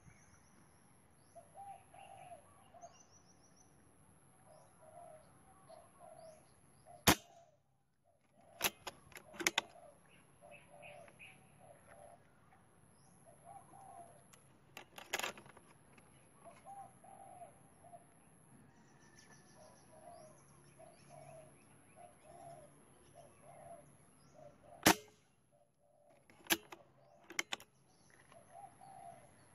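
Air rifle firing: two sharp shots, about seven seconds in and near twenty-five seconds in, each followed within a couple of seconds by a few lighter clicks, with another cluster of clicks midway. Behind them, doves coo over and over and small birds chirp.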